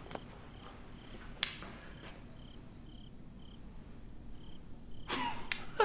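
Faint crickets chirping in a steady pulsing pattern, as night ambience. There is a single sharp click about a second and a half in and a brief noisy burst near the end.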